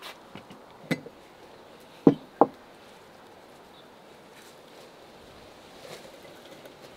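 Light clicks, then two sharp knocks about a third of a second apart as a cast-iron teapot is set onto its cast-iron warmer stand and its lid is put down. Near the end there is a faint rustle of fresh herb leaves being dropped into the pot.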